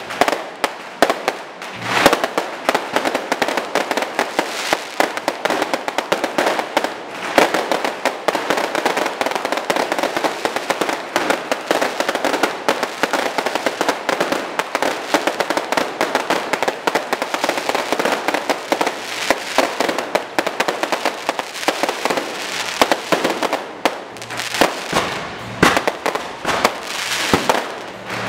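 Electrically fired fireworks going off in a dense, unbroken stream of rapid pops and crackles, with a few louder sharp bangs standing out, about two seconds in and near the end.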